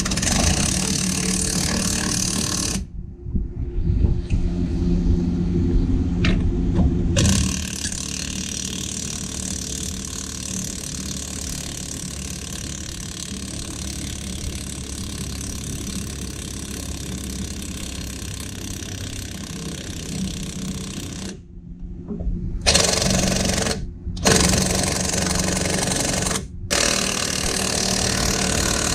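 Impact gun hammering on the forcing bolt of a bearing press, pushing the old front wheel bearing out of the steering knuckle. It runs in several bursts, loudest at the start and again near the end, with short stops between.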